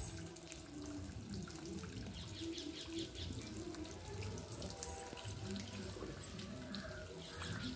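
Faint running and splashing water with small drips, under a low murmur of distant voices.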